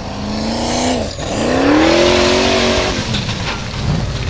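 Formula Offroad buggy's engine revving hard on paddle tyres up a steep gravel slope. The revs climb, drop sharply about a second in, then rise again with a hiss of spraying gravel. They fall away near the end, with a few knocks as the buggy rolls over.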